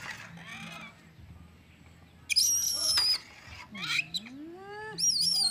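Loud, high-pitched wavering calls come in two bouts, one a little over two seconds in and one near the end. Between them a lower call dips and then slides up in pitch.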